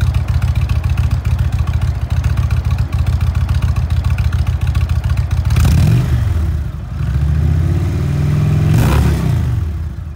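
2018 Indian Chieftain Limited's Thunder Stroke 111 V-twin idling with an even pulsing beat, then revved twice with the throttle. The revs rise and fall in pitch about five and a half seconds in, and again for a longer stretch near the end.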